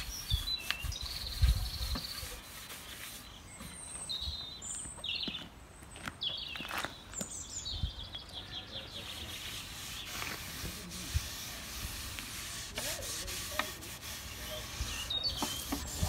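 Gloved hands rubbing walnut stain into the wooden lid of a sewing machine case, a soft scuffing rub with an occasional knock on the wood. Birds chirp in snatches over the first half.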